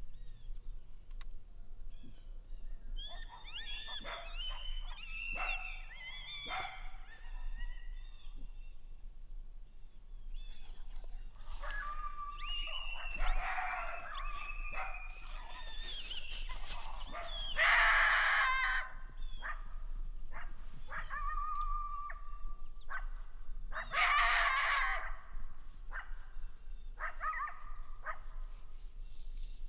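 Canines barking and yipping in several bouts of high, wavering calls, loudest about 18 and 24 seconds in.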